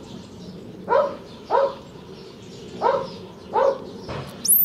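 A dog barking off-screen in pairs of short barks, two barks about half a second apart, the pair repeating after about two seconds. Near the end a high, thin whistling note rises, holds and falls away.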